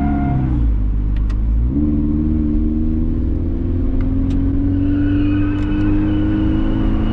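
A car's engine heard from inside the cabin. It eases off over the first second, then pulls hard from about two seconds in, its pitch climbing slowly and steadily as it accelerates through a gear. A few faint clicks come through.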